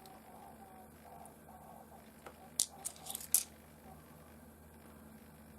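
A few faint, sharp clicks of small rough opal (honey potch) pieces being moved and knocking together, grouped a little past the middle, over a low steady hum.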